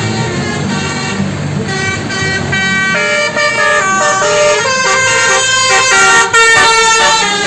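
Bus 'telolet basuri' musical horn playing a quick melody of short stepped notes over the low running of the bus engine. The tune starts about two seconds in and grows louder toward the end.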